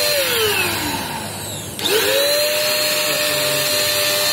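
Handheld electric paint spray gun's motor winding down after being switched off, then switched on again about two seconds in with a quick rising whine. It runs at a steady high whine and starts to fall again as it is cut off at the end.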